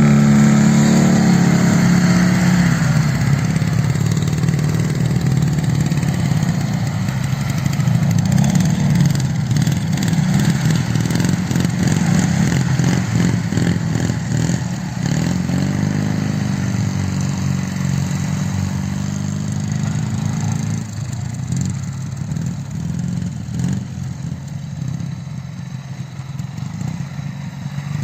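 Soviet flat-twin motorcycle engine running under way, its revs rising and falling again and again. It gets somewhat quieter in the last few seconds.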